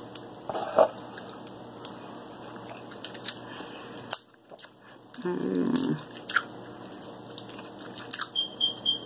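Cooked king crab leg shell being cracked and pulled apart by hand, a run of sharp irregular cracks and crunches, the loudest just under a second in, with chewing between. A brief voiced hum about halfway through.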